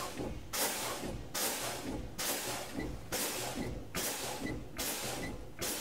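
Truck air brakes being fanned: a sharp hiss of air exhausting from the brake valve each time the foot pedal is pumped, a little more than once a second, bleeding system pressure down to trigger the low air warning.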